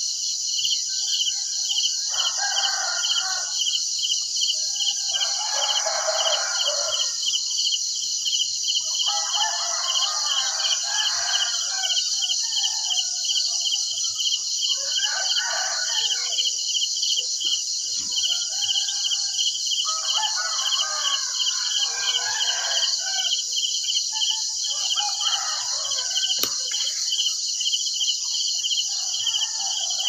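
Roosters crowing again and again, about eight crows each a second or two long, over a steady, fast-pulsing chorus of crickets.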